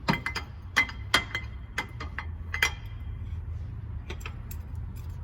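Irregular metallic clinks and taps, some ringing briefly, as the water pump pulley and its bolts are fitted by hand, with a steady low hum underneath.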